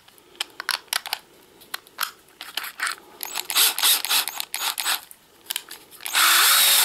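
Clicking and rattling of a Parkside cordless drill's keyless chuck being turned and handled by hand. Near the end the drill runs for under a second, with a short rising whir.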